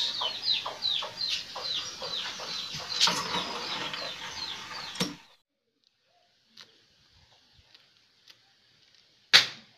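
Chickens peeping and clucking in quick, repeated falling chirps, which cut off abruptly about five seconds in. Near silence follows, with a few faint ticks and one sharp click near the end.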